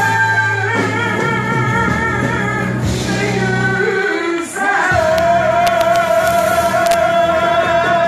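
A live pop song: a singer holding long notes with vibrato over a band. A new long note starts about five seconds in and is held.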